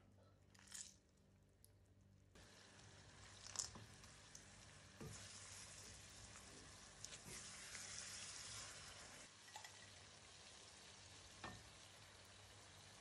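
Chopped tomatoes and cashews frying in oil in a pan, giving a soft sizzle that sets in about two seconds in. A metal spatula stirs them, with a few sharp knocks and scrapes against the pan.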